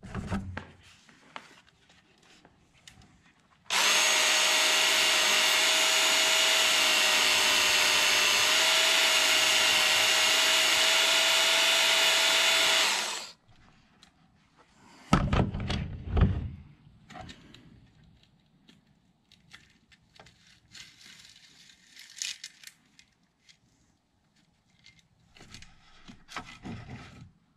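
Work Sharp knife and tool sharpener, a small electric belt grinder, running steadily for about nine seconds as it is used to grind the burrs off chainsaw chain cutters, then switched off. A couple of seconds later come a few loud knocks, then light clinks as the chain is handled.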